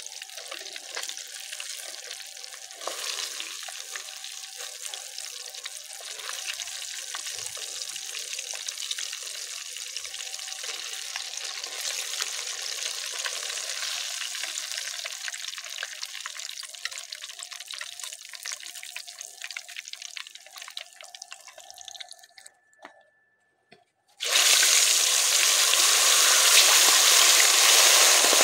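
Oil sizzling in a clay pot as fish is deep-fried, the sizzle slowly dying down over about twenty seconds. After a short break it starts again much louder and denser as a fresh batch of battered fish fries hard.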